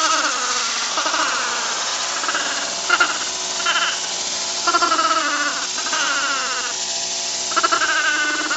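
A small dog gives a series of high, warbling yelps and yowls, about six calls, their pitch wobbling as a jet of air blows into her open mouth. A steady rush of air from an electric blower runs underneath.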